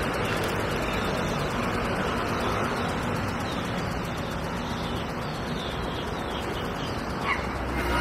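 Steady, even outdoor rushing noise, with a faint bird call near the end.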